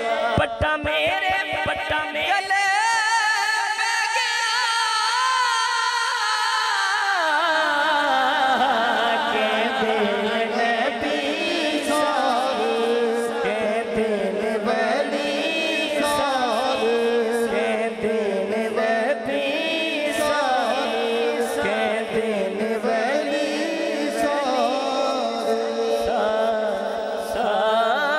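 Male naat reciter singing Punjabi devotional verse into a microphone, drawing out long, wavering held notes.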